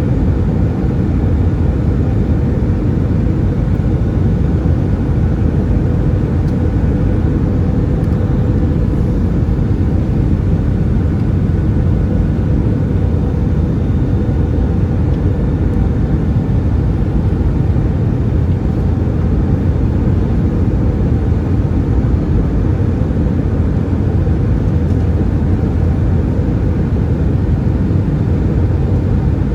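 Steady cabin noise inside an Airbus A320-214, heard from a window seat: the CFM56 engines running and air rushing past the fuselage. It is a constant low rumble with a faint whine, and the level does not change.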